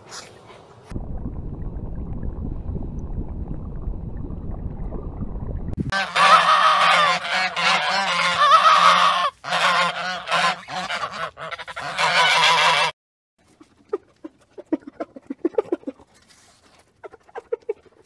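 Black swans calling loudly in a string of honking calls for about seven seconds in the middle. Before it comes a low rough noise, and near the end short, quickly repeated calls from a spotted hyena.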